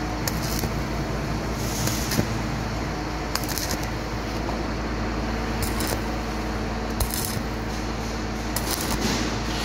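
Stick (covered-electrode) welding arc on thin sheet steel over rectangular tubing, crackling and sizzling steadily with irregular sharp pops.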